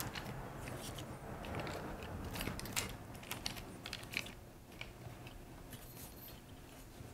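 Faint irregular clicks and light rattling of an aluminium tripod's legs being handled as their plastic leg clamps are snapped shut, with a slightly louder click about three seconds in and another about four seconds in.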